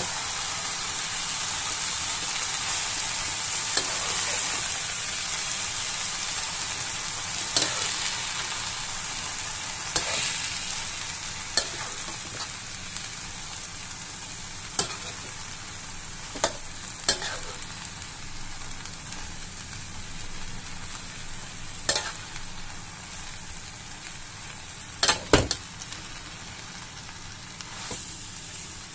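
Shredded jicama, carrot and green beans stir-frying in a wok: a steady sizzle that slowly fades, with the spatula knocking against the wok every few seconds, loudest as a quick double knock near the end.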